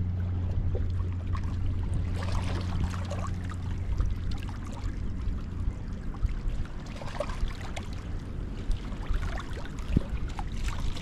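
Water splashing and trickling, over a steady low hum that fades out about four seconds in.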